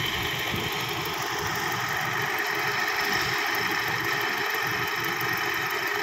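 Asphalt paver finisher's diesel engine running steadily.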